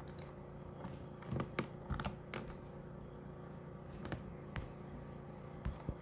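Faint, irregularly spaced clicks of a computer keyboard, about a dozen over a few seconds, entering code. A low steady hum sits underneath.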